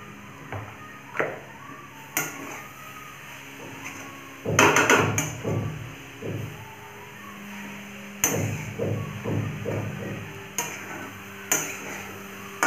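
Flat metal spatula scraping and knocking against a metal kadhai while stir-frying grated vegetables, in irregular strokes, with a loud run of knocks about four and a half seconds in and another run from about eight seconds.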